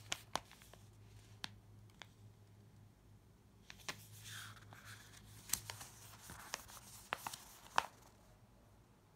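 A paper instruction leaflet being handled and unfolded: faint rustling of paper with scattered sharp ticks and crackles.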